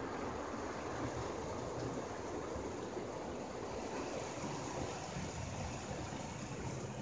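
Ryko Voyager II rollover car wash running over the car, heard from inside the cabin: a steady rush of water and machine noise against the body and glass.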